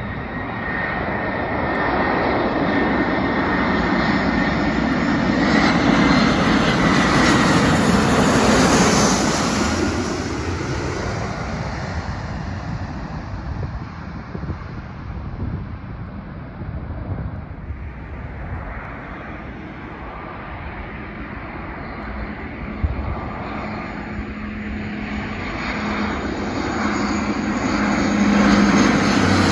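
Jet airliners passing low overhead on final approach, one after another. First an Airbus A340-300 builds to a loud rush of engine noise with a thin high whine, peaking and fading about ten seconds in. A quieter stretch of more distant jet noise follows, then another approaching jet swells up loudly near the end.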